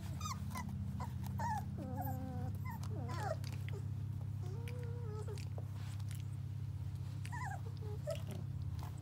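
Four-week-old sheepadoodle puppies whimpering and yipping: a string of short, high, sliding cries, with longer held whines about two and five seconds in, over a steady low hum.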